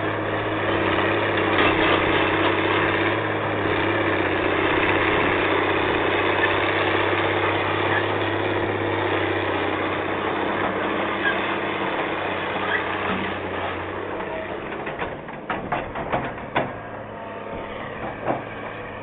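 Excavator's diesel engine running steadily. In the last few seconds it quietens and a quick series of sharp metallic knocks is heard.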